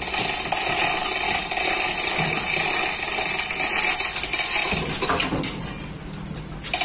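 Loud, steady metallic mechanical rattle from tool work on a steel boat drive frame. It eases off for about two seconds near the end, then starts again.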